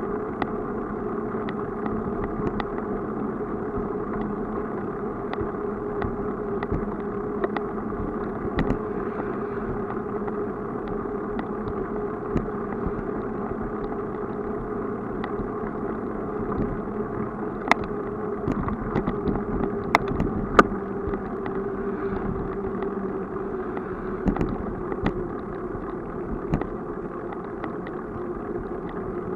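A bicycle rolling along an asphalt cycle path: a steady low hum of tyre and riding noise, with light rattling clicks over bumps and a few sharper knocks about two-thirds of the way through.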